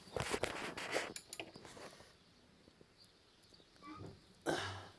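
Metal hand tools clinking and rattling against bolts on a motorcycle's rear brake as a 14 mm wrench is fitted. There is a cluster of quick clicks in the first two seconds, then a short, harsher scrape or rustle near the end.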